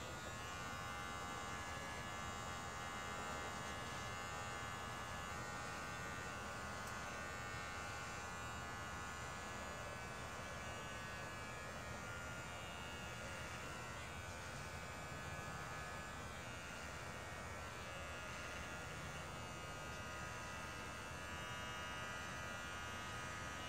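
Electric hair clippers running steadily with an even buzz, touching up a freshly shaved scalp.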